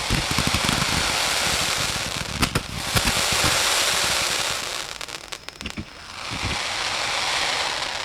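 Fireworks going off at close range: a dense, sustained crackling and hissing of bursting shells, with a few sharp bangs about two and a half to three seconds in and low thumps around six seconds.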